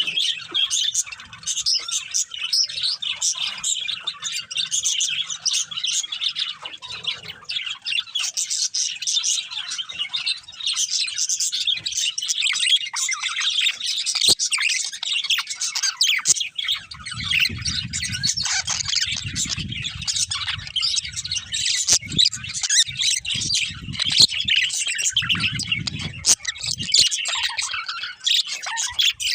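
A pair of budgerigars chirping and chattering busily without a break, with a low rumble underneath twice in the second half.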